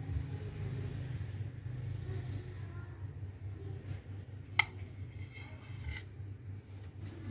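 A metal knife clinks once sharply against a ceramic plate as a slice of cake is set down, then scrapes briefly across the plate as it slides out from under the slice. A steady low hum lies under it.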